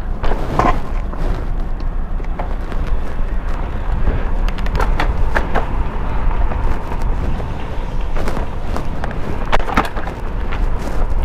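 Wind rushing over a helmet-mounted camera microphone on a moving bicycle, with steady tyre and road rumble and a few short sharp clicks along the way.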